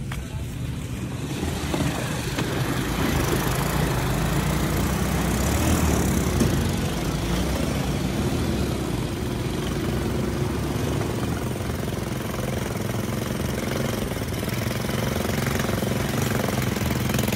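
ATV engine running steadily as the quad drives through mud, louder from about two seconds in.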